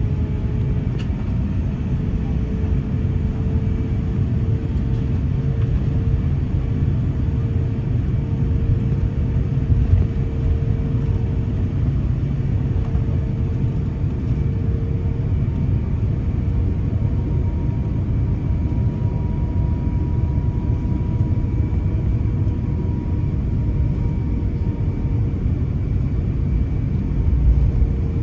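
Cabin of an Airbus A350-900 on the ground before takeoff: a steady low rumble with a faint hum from its Rolls-Royce Trent XWB engines.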